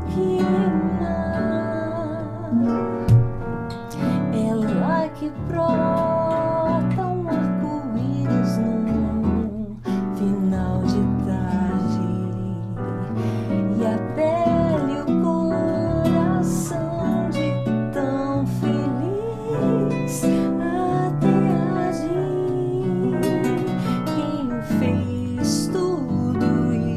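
A woman singing a melody with vibrato, accompanied by her own keyboard playing piano chords and a classical guitar.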